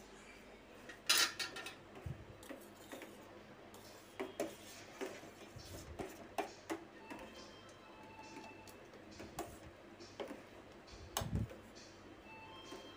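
Steel spoon clinking and scraping against the side of a stainless-steel pan while stirring milk rice pudding. The clinks are irregular and scattered, and the loudest come about a second in and near the end.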